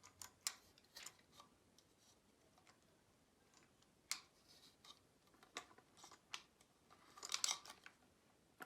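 Faint scattered clicks and light taps of a plastic toy train car and its loose crates being handled, with a short rattling cluster near the end.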